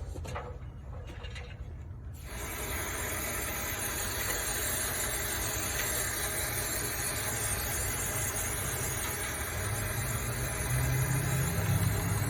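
A machine starts up about two seconds in with a steady, even hiss over a low rumble, its low hum growing stronger near the end.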